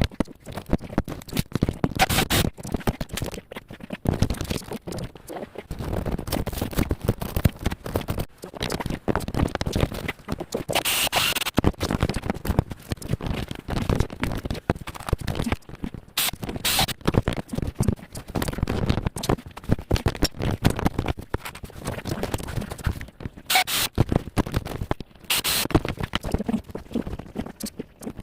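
Continuous irregular scraping and scratching on a hard surface, with frequent sharp clicks and knocks.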